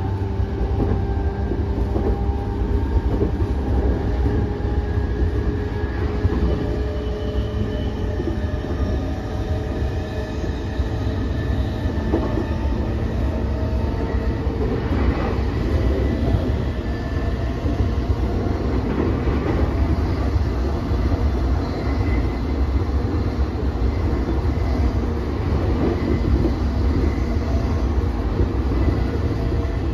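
Interior running noise of a JR East E233-8000 series electric commuter train under way: a steady, loud rumble of wheels on rail, with a thin whine from the traction motors that drifts in pitch as the speed changes.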